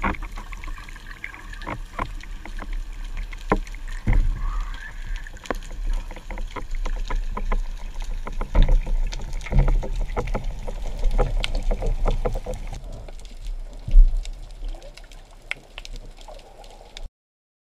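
Underwater water noise on a diving camera's microphone: a steady low rumble of moving water with many scattered clicks and knocks, one loud sharp knock about 14 seconds in. The sound cuts off abruptly near the end.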